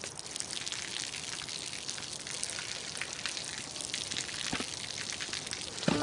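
Water dripping and spattering steadily onto a hard surface, a dense patter of small splashes, with a couple of sharper knocks near the end.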